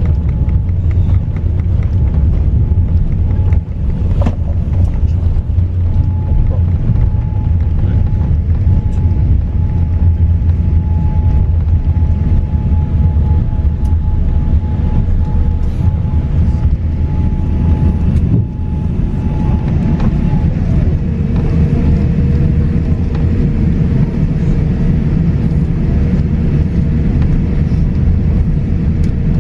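Cabin noise inside a Boeing 787-9 rolling on the runway after landing: a loud, steady low rumble of wheels and engines. A thin engine tone drops to a lower pitch about twenty seconds in.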